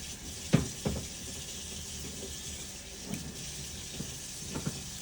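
A few sharp knocks and clicks from handling a hose and blade while the hose end is trimmed down. The two loudest knocks come about half a second and a second in, with fainter ones later, over a steady hiss.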